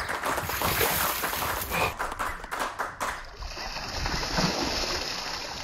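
A bucket of water tipped over a seated man's head, the water gushing out and splashing over him and the table.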